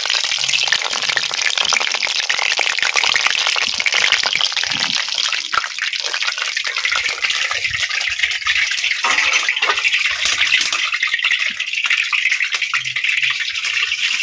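Hot oil sizzling steadily in a kadai as dumplings deep-fry, a dense crackling hiss that eases a little about halfway through as they are lifted out.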